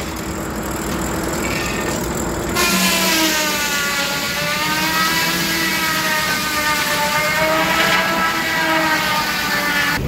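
Steam-driven sawmill circular saw blade running, then biting into a log about two and a half seconds in: a loud cutting noise with a ringing whine that dips in pitch as the blade takes the load and climbs back up.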